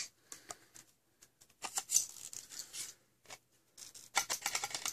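Hard plastic parts clicking and scraping as an orange plastic inner barrel is fitted into an opened Nerf blaster shell: scattered light clicks, a rustling scrape around two seconds in, and a quick run of clicks near the end.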